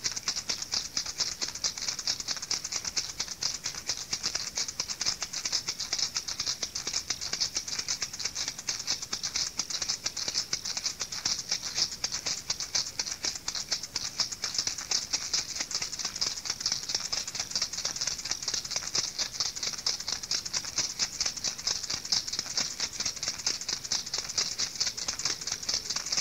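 Steady, dry rattling like a shaker or rattle shaken without pause, with no clear beat; a hissy texture that stays the same throughout.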